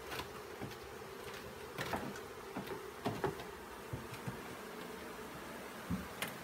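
A freshly shaken-out swarm of honeybees buzzing in a steady drone as they spread across cardboard at the hive entrance, with several short sharp knocks from the hive box and lid being handled.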